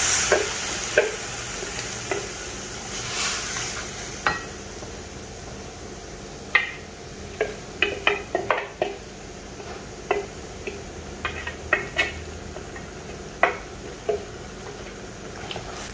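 Spice-marinated chicken sizzling as it goes into a hot stainless-steel wok; the sizzle dies down over the first few seconds. Then a wooden spatula scrapes paste from a bowl into the wok, with irregular sharp taps and knocks against the bowl and the wok's rim.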